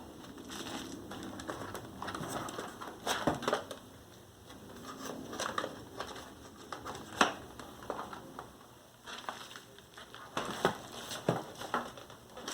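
Bubble wrap and plastic packaging crinkling and rustling as parts are unwrapped by hand, with scattered clicks and taps and one sharper click about seven seconds in.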